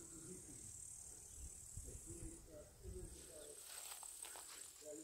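Faint, steady high-pitched chirring of meadow insects, dipping briefly about halfway through.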